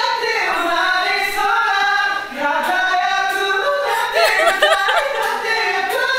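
Male voices singing loudly a cappella in a vocal warm-up, holding and bending long notes with no accompaniment.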